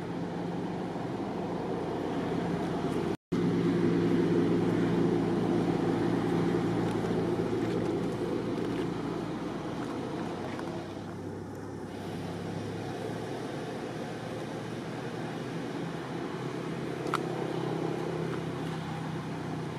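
Steady low mechanical drone, like a motor vehicle's engine running, holding an even pitch throughout. It drops out for an instant about three seconds in, and there is a single faint click near the end.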